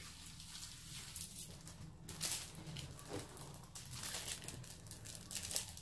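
Plastic packet crinkling and rustling in irregular crackles as it is handled.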